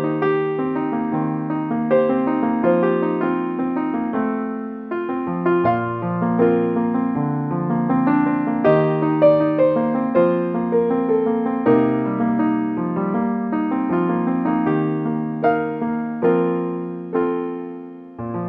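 Background piano music: a slow, gentle piece of sustained chords and single notes.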